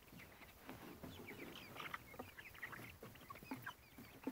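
Young hens clucking faintly in short, scattered calls.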